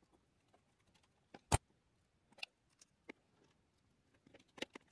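Sparse small clicks and taps of screws, standoffs and a hex driver against a carbon-fibre frame plate during assembly. One sharper click comes about one and a half seconds in, and a few more come near the end.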